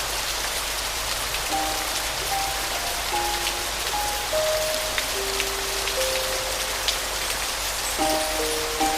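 Steady rain with scattered drop ticks, under a slow, soft piano melody of single held notes that comes in about a second and a half in.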